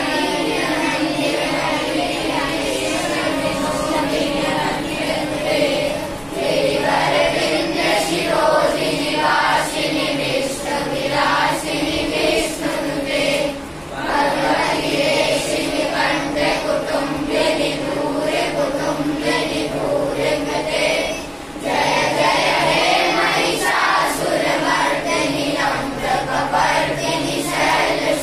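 A group of children singing together in unison, in long sung lines broken by three short pauses for breath.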